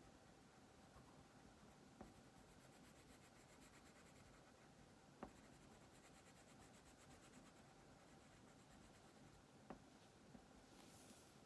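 Wax crayon scribbling on paper: faint, rapid scratchy back-and-forth strokes that come in stretches. There are three small clicks along the way and a brief rustle near the end.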